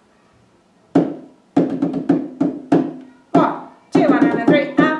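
Hand drum struck with the palms: quiet at first, then single beats from about a second in, going into a quicker, uneven rhythm of strokes, each with a short low ring.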